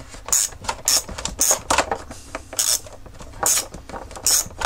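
Plastic headlamp parts and wiring connectors being handled: a string of irregular clicks, knocks and scrapes, about seven or eight in all.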